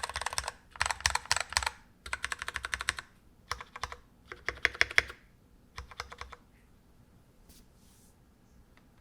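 Typing on a freshly assembled NK65 mechanical keyboard: quick runs of keystroke clicks in several bursts, stopping about two-thirds of the way in.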